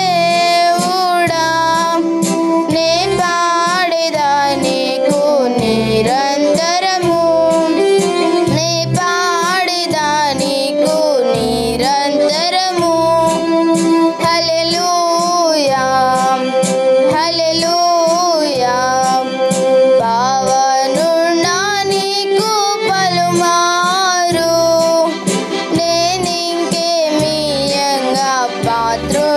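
A girl singing a Telugu devotional song to an electronic keyboard accompaniment. She holds long notes with vibrato over steady keyboard chords.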